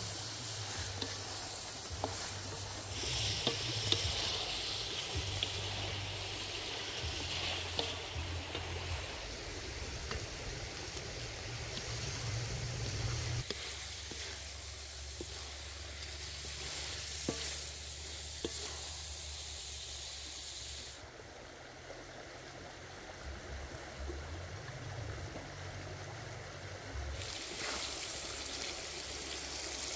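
A spicy braise of eggs and chicken sizzling in a metal wok, with now and then a light click.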